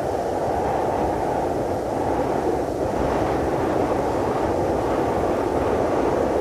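Cold-wind sound effect: a steady, even rush of wind, deep and dull-toned, with no distinct gusts.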